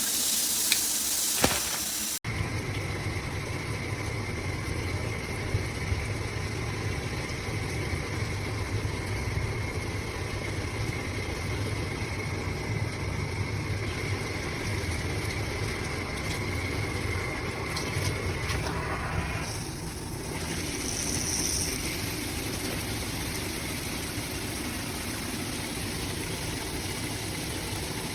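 Shower running: the high hiss of spray for about two seconds, then, after a sudden cut, a steady low rumble of running water with a thin whine that fades out after about 18 seconds.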